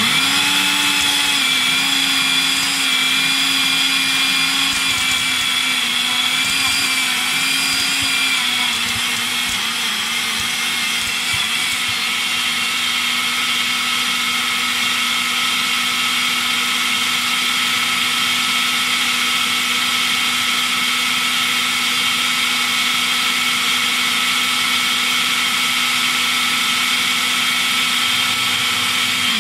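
Personal push-down blender motor running continuously, blending chunks of watermelon, banana and apple with no water added. Its pitch wavers for the first several seconds while the fruit pieces break up, then holds steady as the mix turns smooth.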